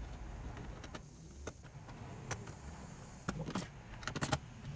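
Scattered sharp clicks and knocks of a car radio and its plastic dash trim being handled and pushed into place, a quick cluster of them near the end.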